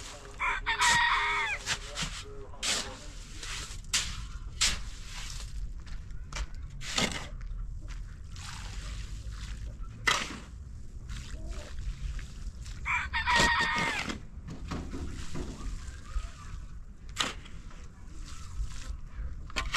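A rooster crows twice, once near the start and again about twelve seconds later, each crow lasting just over a second. Scattered sharp knocks and clicks sound in between.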